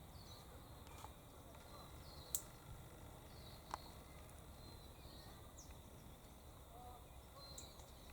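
Quiet outdoor ambience: faint, scattered chirps of small birds, with two brief sharp clicks a little over two seconds in and again about a second later.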